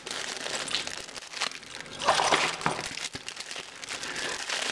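Packaging bag crinkling and rustling as it is handled, with many small clicks and a louder rustle about two seconds in.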